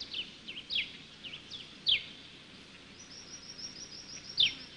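Birds calling in the bush: a series of short, sharply falling chirps, and about three seconds in a quick run of high repeated notes, over a faint steady hiss.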